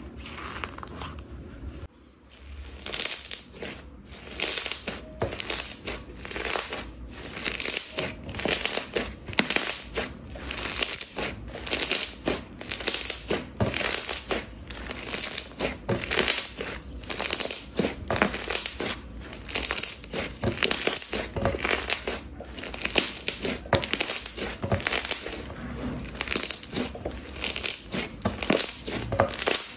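Slime being squeezed and pressed by hand, making crackly, crinkling squelches in a quick, uneven rhythm of about one or two a second, starting about two seconds in.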